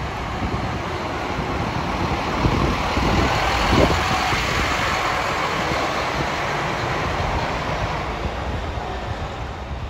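City bus pulling away and passing close by, its engine and tyre noise building to the loudest point about four seconds in, then fading slowly as it drives off.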